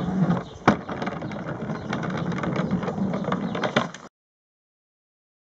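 Small wheeled toy cart rolling across wooden decking as it is pulled along on a string, with scattered clicks and knocks; the sound cuts off suddenly to silence about four seconds in.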